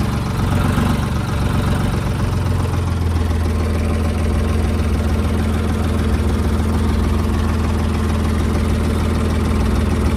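Ford tractor's diesel engine idling steadily, with a tall straight exhaust stack.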